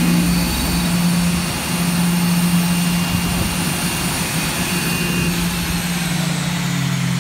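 Embraer ERJ-135LR regional jet's twin Rolls-Royce AE 3007 turbofans running at low taxi power: a steady high whine over a rushing hiss and a low hum. Some of the higher whine tones drop away about five seconds in.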